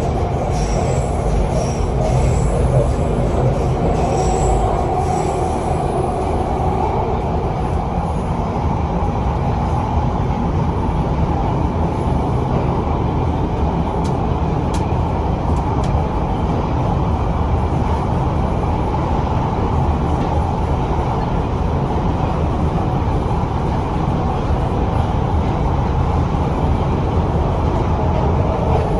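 London Underground Bakerloo line 1972 Tube Stock train running between stations in a tunnel: a steady rumble and rattle of wheels on the track. Thin, high wheel squeal comes and goes in the first few seconds.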